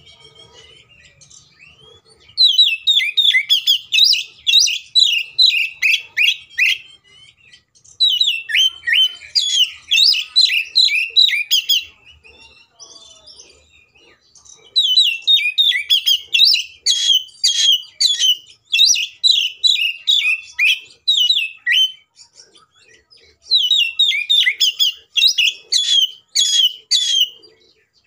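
Oriental magpie-robin singing in four long bursts of rapid, high, repeated notes with short pauses between.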